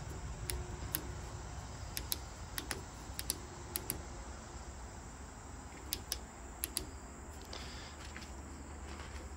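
Push-button switch on a small boat light clicking as it is pressed repeatedly to cycle through its colours. The clicks come singly and in quick pairs, mostly in the first seven seconds.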